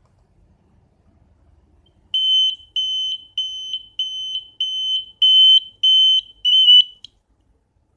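An SFM-27 piezo electronic buzzer, a pulsed-tone alarm buzzer, beeping eight times in a steady rhythm of slightly under two beeps a second. The beeps are a single high, shrill tone; they start about two seconds in and stop about a second before the end.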